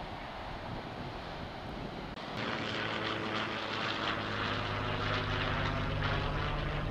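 Wind noise on the microphone. About two seconds in it gives way abruptly to a single-engine propeller plane flying overhead, its engine a steady drone.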